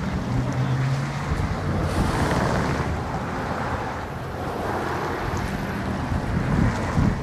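Wind rumbling and buffeting on the microphone over the rush and splash of lake water, with the water noise swelling about two seconds in and again around five seconds.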